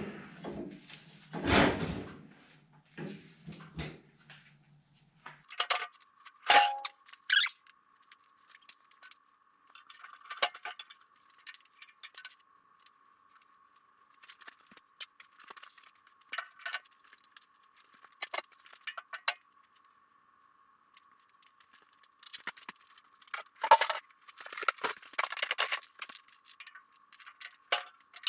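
Metal parts of a John Deere 60 snowblower's auger assembly clinking and clanking as they are worked into the housing and fastened: irregular clinks with a few louder metal strikes.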